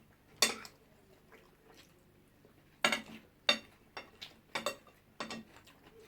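Metal cutlery clinking and scraping against plates while eating: a sharp clink about half a second in, then, after a pause, a run of irregular clinks from about three seconds on.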